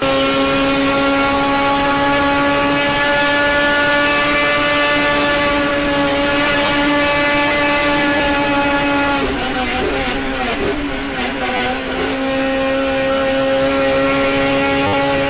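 Onboard sound of a Turismo Nacional touring car's engine held at high, steady revs, heard from inside the cockpit. About nine seconds in, the engine note breaks up and dips for a few seconds, then settles back to a steady high pitch.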